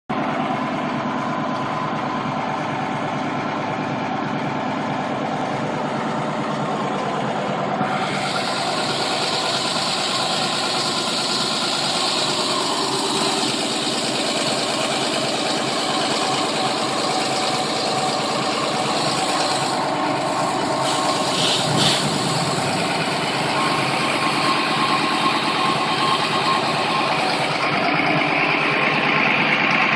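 Engine-driven pumping unit running steadily. About eight seconds in, a strong hiss joins it: water jetting from the end of a tool laid on pallets for a flow test.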